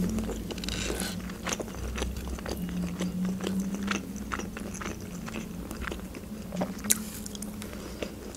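Close-miked chewing of fried chicken nuggets, with wet mouth clicks and small crunches scattered throughout.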